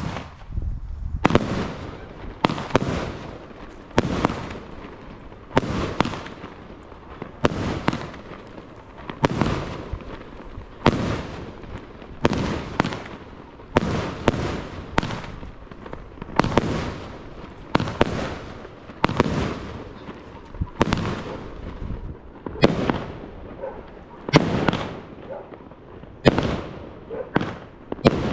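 A 25-shot consumer firework cake firing its shots in a steady series, a loud bang roughly every second and a half, each with a short fading tail.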